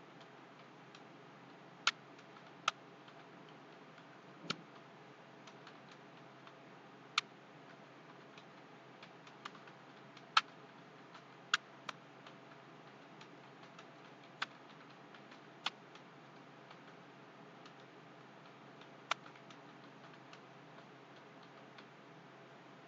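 Computer keyboard keys clicking at an uneven, unhurried pace over a faint steady hiss, with about ten sharper clicks standing out from many soft ones.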